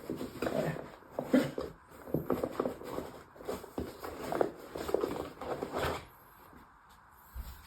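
Hands rummaging in a tool bag, tools knocking and the bag rustling in quick irregular clicks, stopping about six seconds in.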